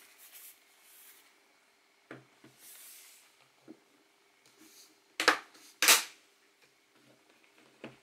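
Handling noises of a ThinkPad laptop being turned over and set down on a desk: light rubbing and knocks of its plastic case on the tabletop, with two sharp knocks in quick succession just past the middle.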